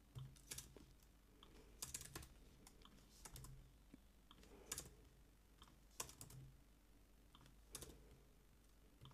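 Faint typing on a computer keyboard: irregular keystrokes, some single and some in short runs, with pauses between them.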